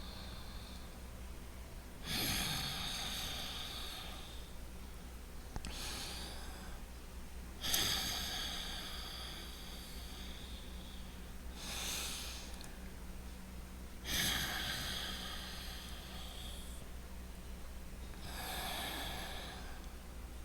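A person breathing loudly in and out through the nose, the audible breathing the tai chi relaxation exercise is built on. About six breaths at uneven spacing, with short quiet gaps between them.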